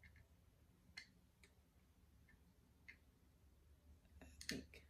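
A few faint, sharp clicks as a small fragrance-oil bottle and an Aroma360 Mini scent diffuser's body are handled and fitted together, with a slightly louder handling knock near the end.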